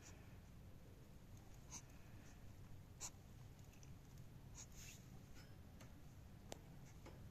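Near silence: a steady low room hum with a few faint, short scratches and ticks scattered through it.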